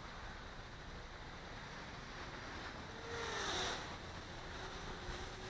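Gusty wind rushing over the microphone, with the faint whine of a Blade 200 QX quadcopter's motors. The whine swells about three seconds in, then sags slightly in pitch and carries on.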